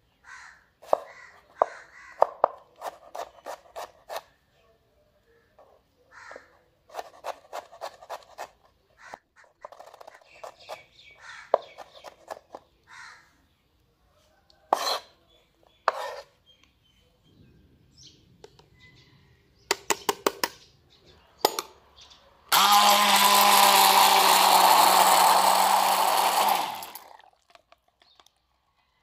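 Knife chopping strawberries on a wooden cutting board in runs of quick taps and knocks. About two-thirds of the way in, an immersion blender runs steadily for about four seconds, pureeing the strawberries, then cuts off suddenly; the blender is the loudest sound.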